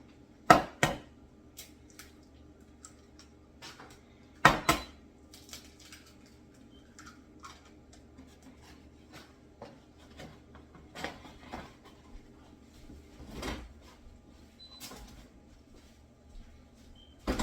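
Kitchen dishes and utensils knocking and clinking: sharp taps in quick pairs near the start and about four and a half seconds in, then lighter, scattered clinks.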